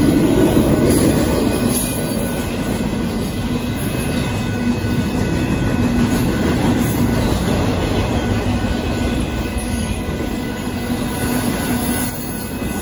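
Union Pacific intermodal freight train's container cars rolling past: a steady, loud rumble of steel wheels on the rails, a little louder in the first couple of seconds.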